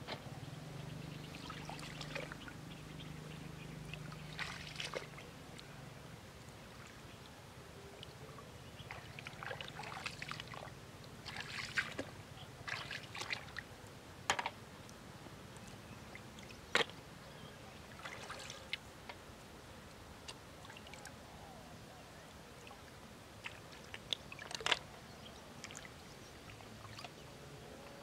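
Shallow river water sloshing and trickling as hands pick snails off the riverbed, with a few sharp clicks of snail shells dropped into a metal bowl.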